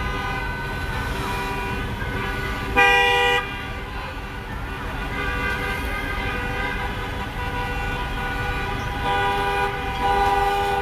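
Many car horns honking at once in long held tones, with one loud short blast about three seconds in and a burst of louder honking near the end, over a low rumble of vehicle traffic.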